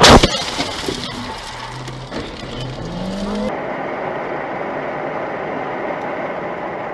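A loud crash of a car collision right at the start, followed by car noise. From about three and a half seconds in there is a steady run of engine and tyre noise heard through a dashcam inside a moving car.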